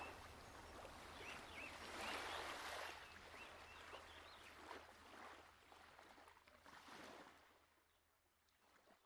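Faint noisy ambience that swells and ebbs, with a few short high chirps, fading away near the end.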